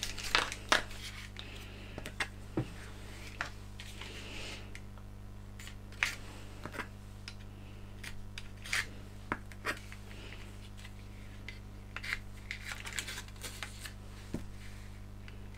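Tamiya masking tape being peeled off a plastic scale-model fuselage in short rasping pulls, with light clicks and knocks as the plastic parts are handled. A steady low hum runs underneath.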